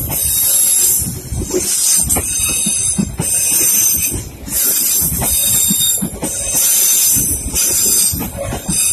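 Passenger train of KAI K3 economy coaches passing close by, its wheels clattering on the track under a loud hiss. The sound swells and dips about every second and a half.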